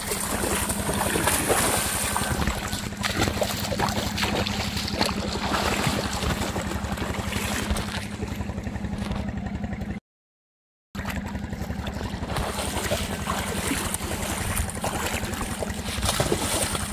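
Water splashing as a child runs, swims and paddles through shallow river water, over a steady low hum. The sound cuts out completely for about a second, a little past the middle.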